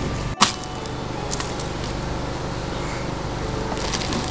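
Metallic foil gift wrap crinkling and rustling as a present is unwrapped, with a sharp click about half a second in and louder rustling near the end, over a steady low room hum.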